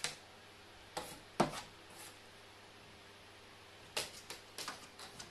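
A carrion crow knocking its beak against the plastered wall and hard surfaces as it moves about: a scatter of short sharp taps, the loudest about a second and a half in, with a quick cluster of them near the end.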